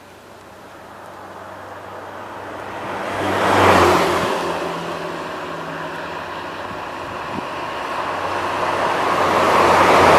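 Intercity buses passing at speed on a highway, the engine drone and tyre noise swelling and fading. The first pass peaks about four seconds in, and a second bus approaches near the end.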